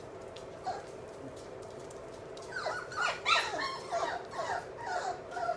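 Three-week-old Labrador puppies whining and squeaking: a quick string of short, high whines that bend up and down in pitch, starting about halfway through.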